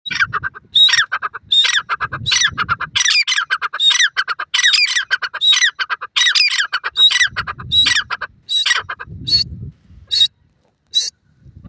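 Grey francolin calling: a long series of loud, shrill repeated notes, each sliding down in pitch, coming a little under a second apart and thinning to a few short single notes near the end.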